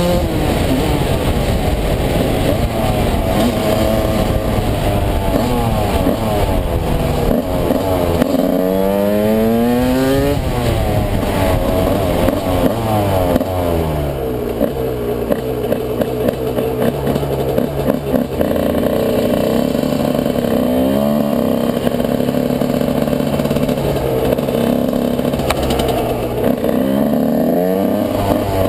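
Yamaha YZ125 two-stroke single-cylinder engine heard from on the bike, revving and running through the gears on the road. Its pitch rises as it accelerates about eight seconds in, then falls as it slows, with more revving near the end.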